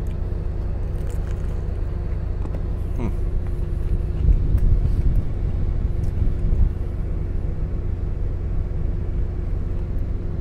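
Steady low rumble of an idling semi-truck heard inside its sleeper cab, with a thin steady tone over it. A few faint chewing and handling noises come in the middle.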